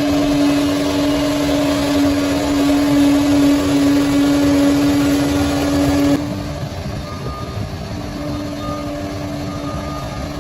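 Bulldozer's diesel engine running steadily with a constant hum. About six seconds in, the sound drops suddenly to a lower level and carries on more quietly.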